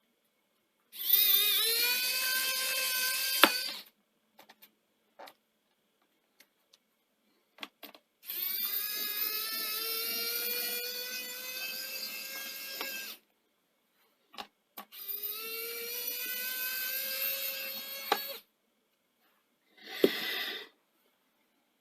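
Small electric screwdriver whirring in three runs of a few seconds each, its pitch rising slightly as it spins, backing out laptop base-cover screws, with a shorter burst near the end and light clicks between runs.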